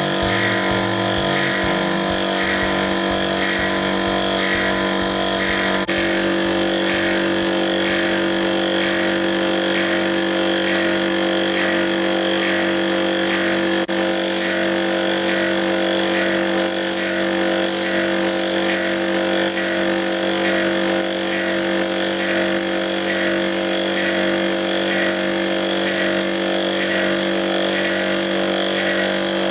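Air compressor running steadily, driving a hand-held paint spray gun on an air hose, with the gun hissing in short repeated bursts as it sprays.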